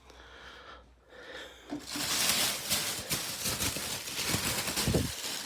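Plastic packaging rustling and crinkling as it is handled, starting about two seconds in, with a few low thumps near the end.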